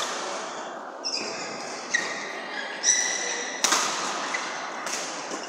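Badminton rackets smacking a shuttlecock in a fast doubles rally: several sharp hits about a second apart, the loudest about three and a half seconds in, echoing in a large hall. Court shoes squeak on the floor between the hits.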